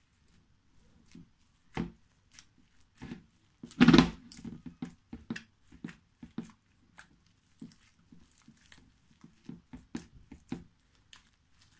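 Foam slime with foam beads and sequins being pressed, squished and pulled apart by hand: irregular sticky clicks, crackles and squelches, with one louder squish about four seconds in.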